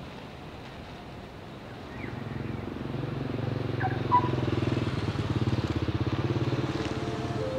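Motor vehicle engine running, growing louder from about two seconds in with a steady pulsing hum, and a short knock about four seconds in.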